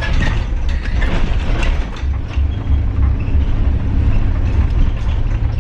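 Box truck on the move, heard from inside the cab: a loud, steady low engine and road rumble with loose rattling from the cab and cargo box.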